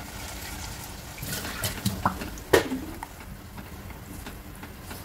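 Green chilli paste sizzling in hot butter and oil in a nonstick kadai as it is stirred, with scattered knocks and scrapes of a silicone spatula against the pan, the loudest about two and a half seconds in.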